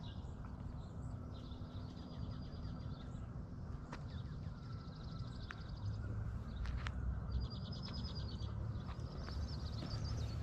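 A small songbird singing a rapid, even trill about a second long, repeated about four times, over the walker's footsteps and a low rumble.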